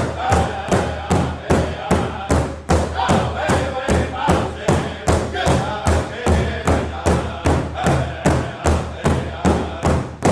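Powwow drum group striking a large shared drum in unison, a steady beat of about three strokes a second, with men singing over it.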